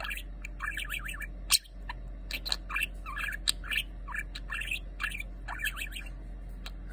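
Budgerigar chattering in a quick, wavering warble with sharp clicks mixed in, stopping about six seconds in.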